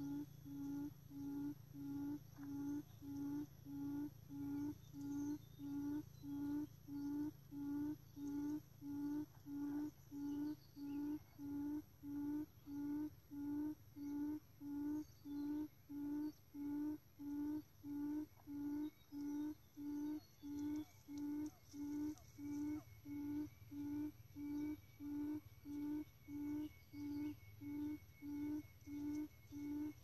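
Lure call of a quail, a buttonquail, played on a loop: short low hoots repeated evenly, about three every two seconds, to draw birds to the trap.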